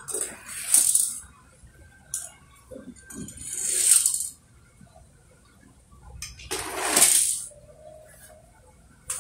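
Small toy cars rolling down a sloping board and onto a concrete floor, one after another: three rolling runs about three seconds apart, each growing louder and then stopping, with a few light clicks between them.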